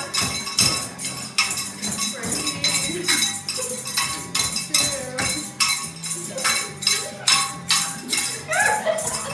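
Rock band music with a cowbell struck hard on a steady beat, about two to three strikes a second, over the band.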